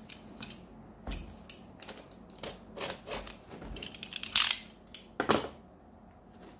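A cardboard box being opened and handled with a utility knife: scrapes, rustles and light clicks of cardboard, packing tape and the plastic knife, with two louder scrapes about a second apart late on.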